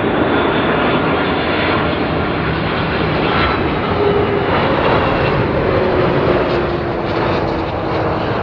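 Airplane passing overhead near the runway end: a loud, steady engine roar, with a faint tone sliding slowly lower in the second half.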